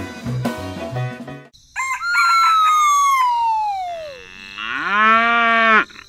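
Background music for the first second or so, then a rooster crowing once, a long call falling in pitch, followed by a cow mooing, rising and then held for about a second before cutting off.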